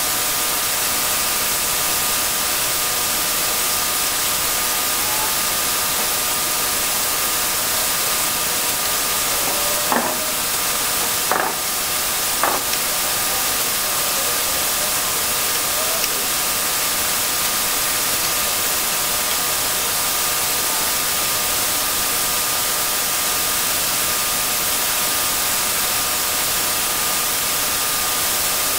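A steady hiss with a faint hum of steady tones under it, broken by a few light clicks near the middle.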